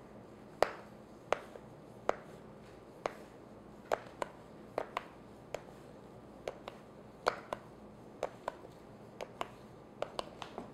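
Thin metal blade clicking and scraping against the metal bottom plate of a two-piece tube pan as it is worked between the chiffon cake and the plate to loosen the cake: a string of short, sharp, irregular ticks, roughly one or two a second.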